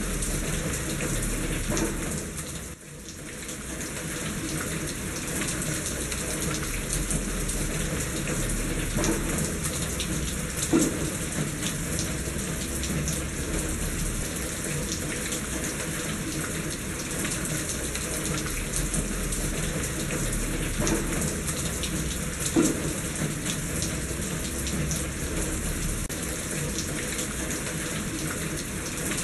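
Steady rain with water running and splashing in a gutter. A few louder drips or splashes stand out now and then, and the level dips briefly about three seconds in.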